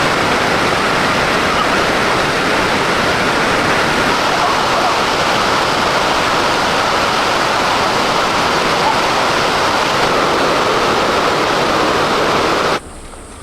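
Steady, loud rush of flowing water, like a waterfall or fast stream, cutting off suddenly near the end.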